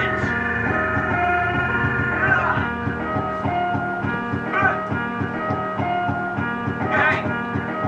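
Instrumental intro of a rap song: a looping plucked-string melody over a steady beat, with a short bright accent about every two and a half seconds and no rapping yet.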